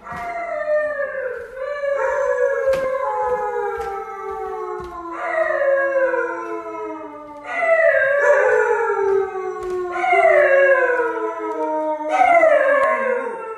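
Husky howling: a run of about six long howls, each sliding down in pitch, one after another.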